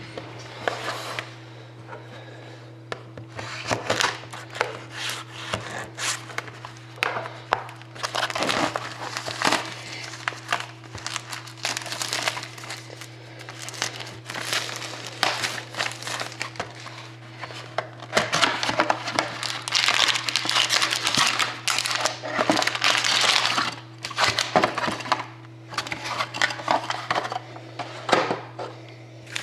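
Plastic shrink wrap on a sealed box of hockey trading cards crinkling and tearing as it is unwrapped by hand, in irregular rustling bursts that grow busier in the second half. A steady low hum runs underneath.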